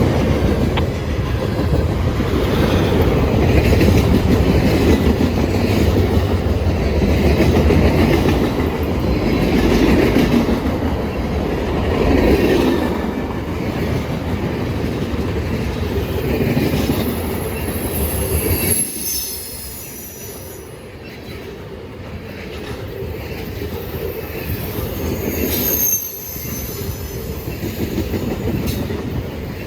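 Freight train cars rolling past on steel rails, wheels clattering over the rail joints. Thin high wheel squeals come in twice, once about two-thirds of the way through and again near the end. The rumble eases off for a few seconds a little past the middle.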